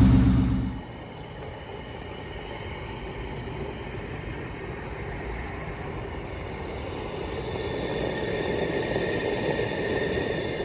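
Car engine idling, then stopping abruptly about a second in, leaving a quieter steady low rumble with a faint high whine.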